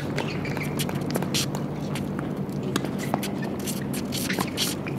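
A tennis racket strikes the ball on a serve right at the start, a sharp crack, followed by scattered short knocks and clicks as the point goes on, over a steady low hum.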